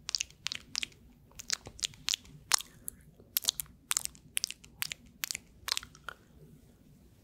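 Gum being chewed right at a foam-covered microphone: a run of sharp mouth clicks and smacks, unevenly spaced, about three a second.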